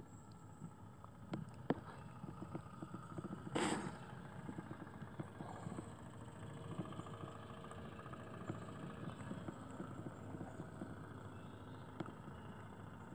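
Small boiler-fired steam engine of a model boat running, a fast steady chuffing patter. A brief loud burst of noise about a third of the way in.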